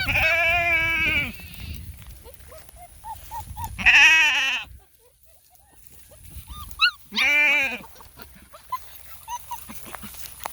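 Sheep bleating: three loud, wavering bleats, one at the start lasting about a second, one about four seconds in and one about seven seconds in.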